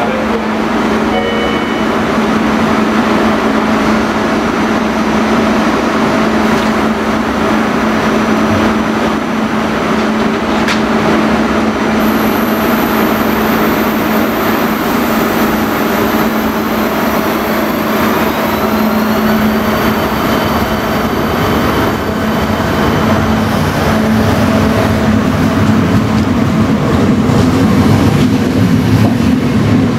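ČD class 471 CityElefant double-deck electric multiple unit pulling away from a platform: a steady electrical hum, then from about halfway a traction motor whine that rises in pitch as the train picks up speed, with the running noise growing louder near the end.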